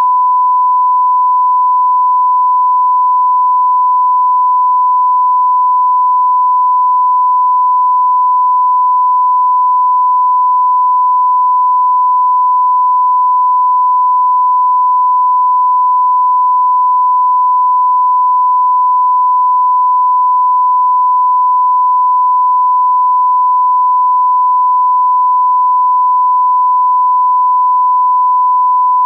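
Loud, continuous 1 kHz sine test tone, the reference tone that goes with a broadcast test card, held at one unchanging pitch and level.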